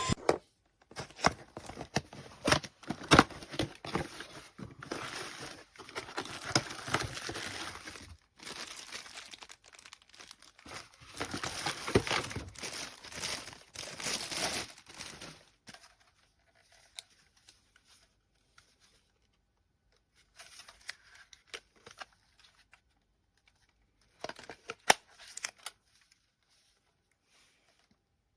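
Irregular crinkling and rustling handling noise with scattered sharp clicks, dense for the first half and then thinning to occasional clicks and short bursts.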